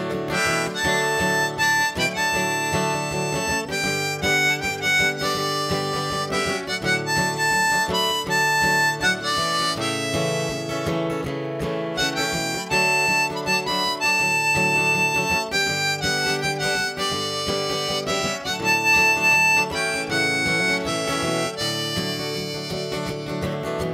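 Harmonica in a neck rack playing the melody over a strummed acoustic guitar, an instrumental break in a folk song, with a few long held harmonica notes.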